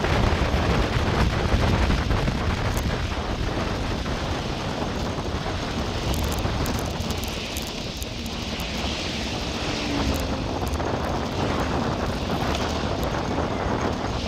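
Wind buffeting the microphone of a camera on a moving bicycle, a steady rough rush heavy in the low end, with a few faint clicks and rattles from the ride near the middle.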